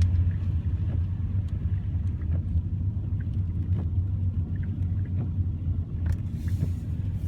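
Steady low rumble of a vehicle running, with faint scattered ticks on top, typical of rain falling on it.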